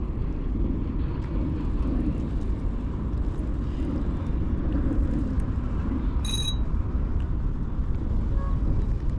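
Steady low outdoor rumble at an even level, with one short high-pitched chirp-like tone about six seconds in.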